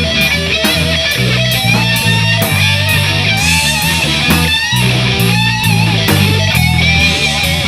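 Live rock trio playing instrumentally: electric guitar soloing with bent, gliding notes over a bass line and a steady drum beat with regular cymbal strokes.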